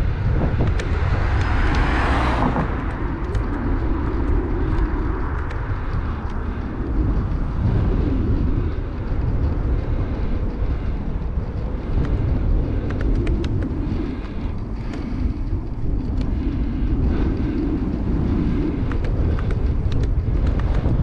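Wind buffeting the microphone of a camera on a moving bike, a steady low rumble, with a vehicle rushing past about two seconds in.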